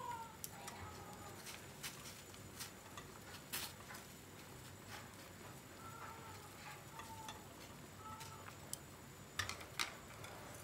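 Chopsticks clicking and scraping against a stainless steel pot as pumpkin chunks boiling in water are stirred: scattered light clicks, with a quick cluster of several near the end.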